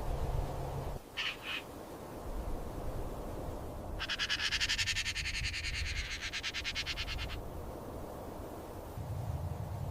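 Bird calls: two short high chirps about a second in, then a rapid pulsing trill lasting about three and a half seconds.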